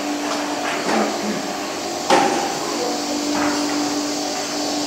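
Factory machinery running: a steady hum over a noisy background, with a few sharp knocks or clacks, the loudest about two seconds in.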